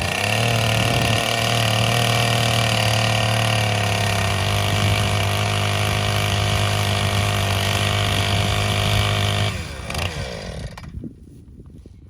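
Husqvarna 455 Rancher chainsaw's two-stroke engine running at a steady speed, then shut off about nine and a half seconds in, its pitch falling as it winds down to a stop.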